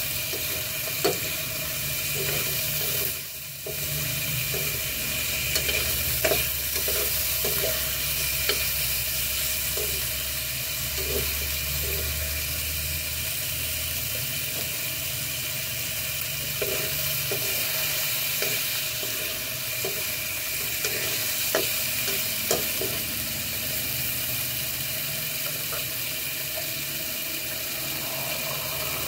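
Chicken pieces and garlic sizzling in hot oil in a metal wok, with a metal spoon scraping and clinking against the pan as they are stirred and turned. The stirring clicks stop about three-quarters of the way through, leaving the steady sizzle.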